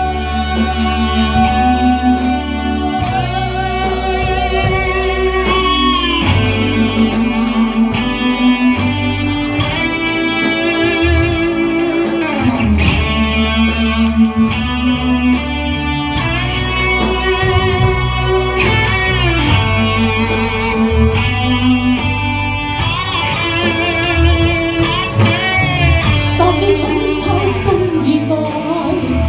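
Live band playing an instrumental break: an electric guitar carries the lead melody with sustained, bending notes over the full band's backing.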